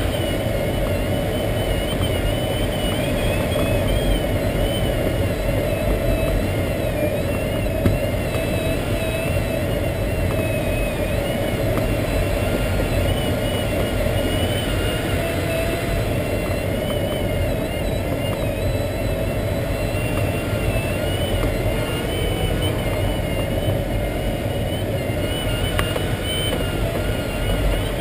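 Steady rush of airflow in the cockpit of an SZD-51-1 Junior glider in flight, with a thin high tone wavering up and down in pitch above it.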